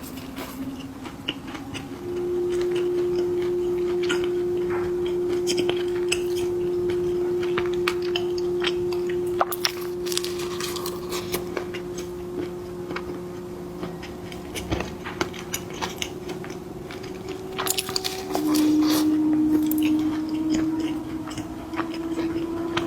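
A person eating snacks close to the microphone: biting and chewing, with scattered short crunches and clicks, over a steady hum that drops slightly in pitch near the end.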